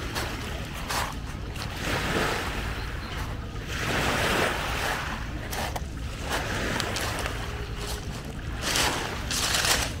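Small waves washing up over a pebble shore, swelling and fading, with the loudest wash about four seconds in. A low wind rumble on the microphone runs underneath.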